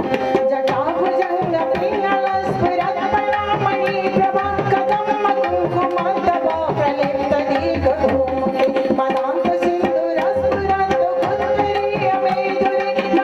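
Devotional bhajan music: singing over a steady harmonium-like drone, kept in time by a hand-drum rhythm.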